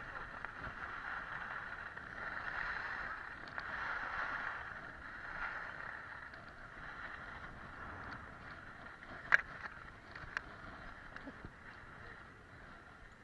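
Skis sliding over groomed snow: a steady scraping hiss that rises and falls, with two sharp clicks about a second apart near the end.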